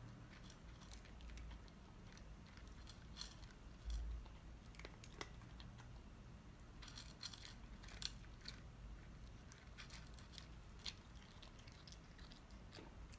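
Cat chewing dry kibble: a scatter of faint, crisp crunches and clicks as it bites and chews, with a dull thump about four seconds in.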